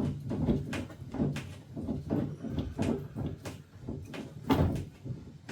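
Irregular knocks and clunks of tools and a plastic fittings box being handled, its lid set down as a drip tray, the loudest clunk about four and a half seconds in.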